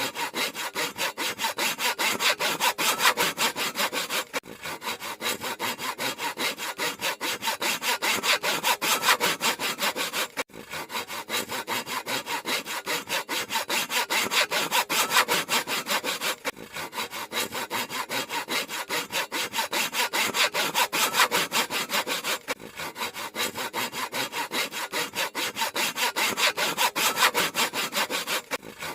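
Handsaw cutting through wood in quick, even back-and-forth strokes, with a short break about every six seconds.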